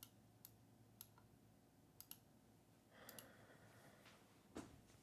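Faint computer mouse clicks, about seven sharp single clicks spread out, some in quick pairs, with a soft thump near the end.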